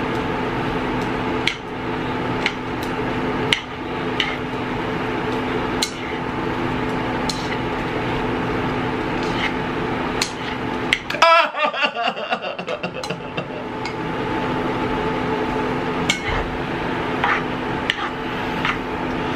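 Wooden chopsticks clicking and tapping against a non-stick pan every second or two while instant noodles cook in it, over a steady electric hum from the tabletop burner.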